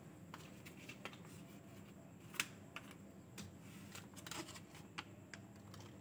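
Faint scattered clicks and crinkles of a plastic squeeze pouch of mayonnaise being handled and opened, with the sharpest click about two and a half seconds in, over a low room hum.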